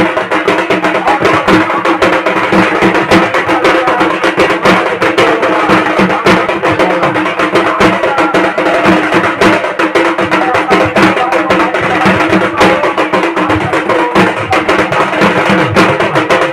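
Fast, unbroken drumming with sharp stick strikes, over a steady low tone.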